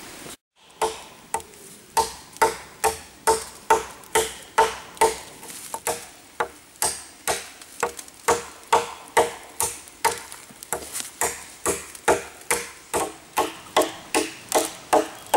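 FKMD parang chopping into a dry deadwood log, one blow after another at about two strikes a second. Each strike is a sharp chop with a short ringing note.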